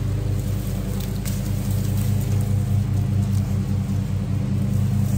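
An engine running steadily at idle: a low, even hum with a fast regular pulse.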